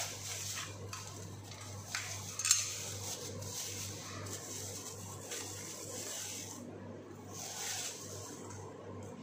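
Plastic wrapping crinkling and cardboard rustling as a boxed circular saw is handled and lifted out of its carton, with a few sharp knocks, the loudest about two and a half seconds in.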